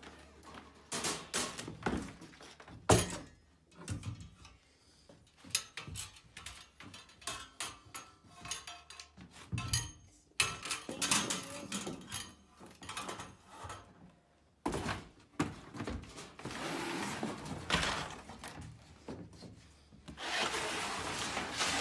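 Quail cage parts and their packaging being unpacked by hand: a long run of irregular knocks, clatters and thuds, the loudest about three seconds in, with stretches of rustling partway through and near the end.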